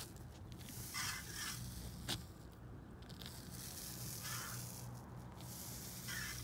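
Paint roller on an extension pole rolling wet Qsil 216 silicone coating across solar-panel glass: a few soft, sticky scraping strokes, with one sharp click about two seconds in.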